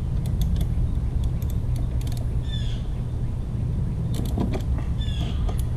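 Wrench working a bolt on a push mower's metal handle bracket: scattered metallic clicks and clinks, with two short high squeaks, over a steady low rumble.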